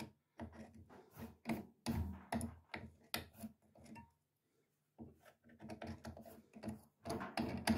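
Irregular clicks and light knocks from handling a tumble dryer's idler pulley and drive belt against the metal pulley arm on the motor, with a pause of about a second midway.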